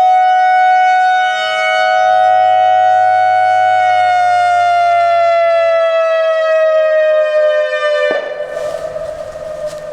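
ACA Alertronic AR-1600 electronic siren at the end of its Fire signal: a loud steady tone that starts to slide down in pitch about four seconds in, then cuts off abruptly about eight seconds in. A fainter siren sound carries on after it.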